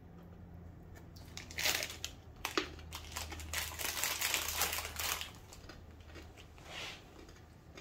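Clear plastic snack bag crinkling as it is handled, in a run of bursts from about one and a half to five seconds in, then one short crinkle near the end.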